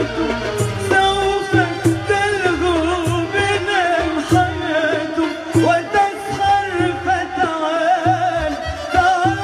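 A woman singing an Arabic song into a microphone, her voice wavering in ornamented runs, over instrumental accompaniment with a bass line and percussion hits.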